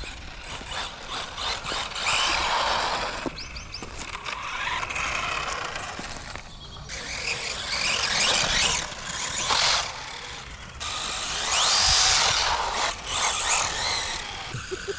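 A radio-controlled car driving in short bursts: its motor whines up and down in pitch over the noise of its tyres churning on rough ground. The sound stops and starts abruptly several times.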